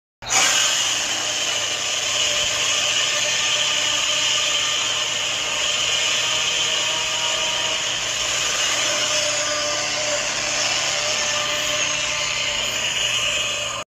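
Movie-monster sound effect: a harsh, steady rasping noise that starts abruptly and cuts off suddenly after about thirteen seconds.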